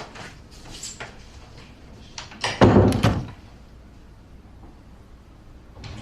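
A door closing with a loud thud about two and a half seconds in, after a few faint clicks.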